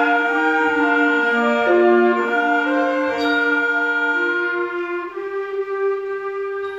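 School wind band of brass and woodwinds (trumpets, saxophones, clarinets, flutes) playing a slow passage of long held chords. The chords shift every second or so and ease off a little in loudness after about five seconds.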